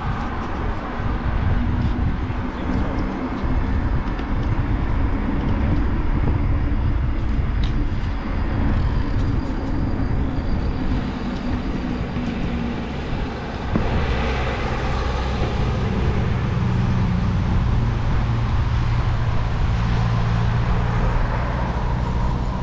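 Steady wind rush and rumble on the microphone of a camera riding along on an e-bike over asphalt, mixed with tyre noise. It dips briefly about halfway through, then comes back a little stronger and steadier.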